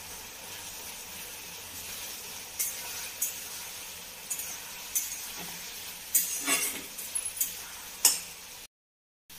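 Onion, tomato and spices sizzling in oil in a kadai while a spatula stirs them, with several short knocks and scrapes of the spatula against the pan. The sound drops out for about half a second near the end.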